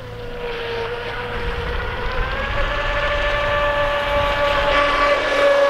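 WL Toys WL915 RC speedboat's brushless motor whining at a steady high pitch as the boat runs across the water, getting louder through the clip.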